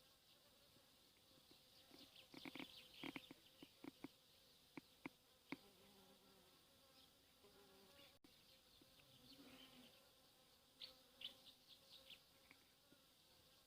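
Faint outdoor ambience: an insect buzzing, with scattered short ticks and chirps, clustered about two to five seconds in and again near the end.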